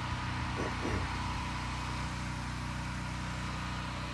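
Small engine running steadily at constant speed, likely the gas engine of a pressure-washing rig. A brief sliding sound comes in just under a second in.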